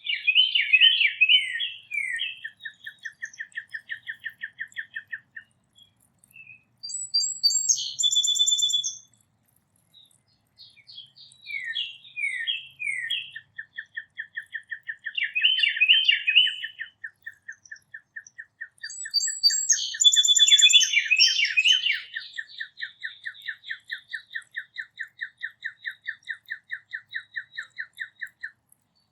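Several songbirds singing over one another: quick falling whistled notes and high chirps, over a long series of short notes repeated evenly about four times a second that runs on for many seconds.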